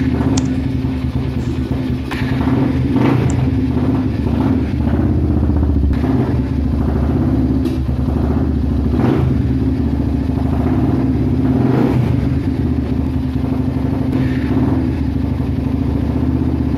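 Honda Tiger 200 cc single-cylinder four-stroke engine in a Kawasaki KLX S, running steadily just after being started, with a few brief rises in revs.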